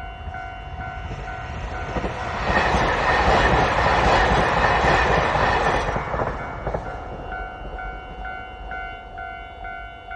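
Railway level-crossing warning bell ringing steadily at about two strokes a second while a JR Hokkaido KiHa 261 series diesel limited express passes over the crossing. The train's passing noise swells about two seconds in, drowns out the bell for several seconds, then falls away, leaving the bell ringing on.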